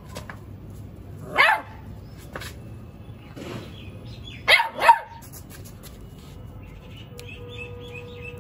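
Beagle puppy barking in short, high yips: one about a second and a half in, a fainter one, then two in quick succession a little past the middle.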